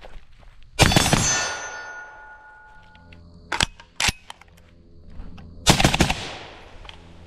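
FN SCAR 16S short-barrelled 5.56 rifle firing at steel targets: a loud shot about a second in, followed by a steel plate ringing with fading tones, two sharper, lighter cracks near the middle, and a quick string of shots near the end.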